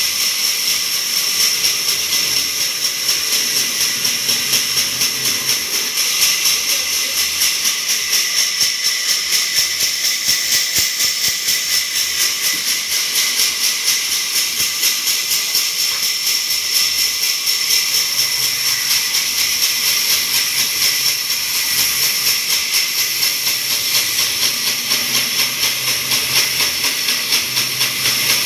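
Large vertical band saw running and ripping planks lengthwise: a loud, steady high-pitched hiss of the blade cutting through wood, its level pulsing quickly and regularly.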